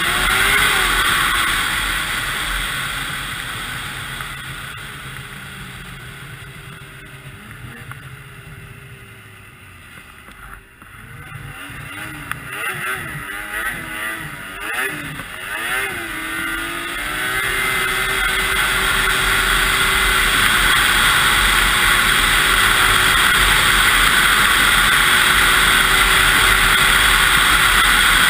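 2002 Yamaha SX Viper 700 snowmobile's two-stroke triple running down a trail. The throttle eases off and the engine winds down for about ten seconds, then it is blipped up and down a few times, and from about seventeen seconds in it is held open at a steady high run.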